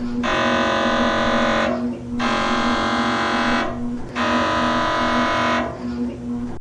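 MRI scanner running a scan sequence: loud electronic buzzing in blocks of about a second and a half, each followed by a short pause, repeating about every two seconds over a lower, steadily pulsing hum.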